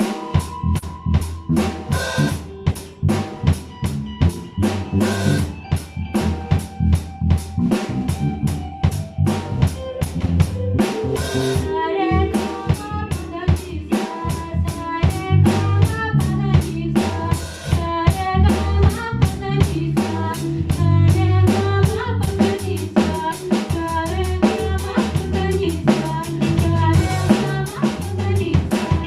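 Music with a drum kit playing a steady beat, kick and snare over bass, with a melody coming in about a third of the way through.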